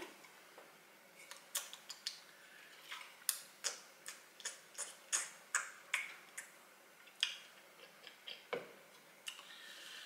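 Irregular short, sharp clicks and smacks, a couple of dozen over about eight seconds, from a person sipping canned carbonated soda through a straw and tasting it; they stop shortly before the end.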